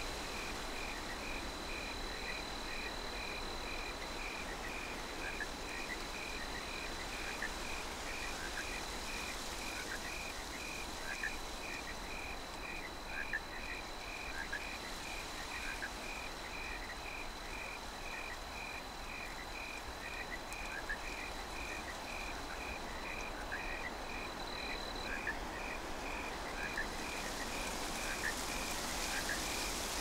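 Crickets chirping in an even rhythm, about two chirps a second, over the soft hiss of a night breeze that grows a little near the end.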